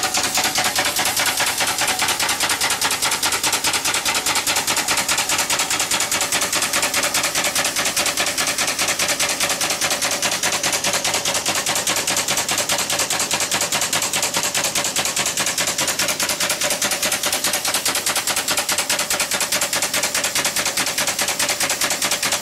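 Home-made single-cylinder steam engine running fast on 20 psi of steam: a rapid, even, unbroken rattle of exhaust beats.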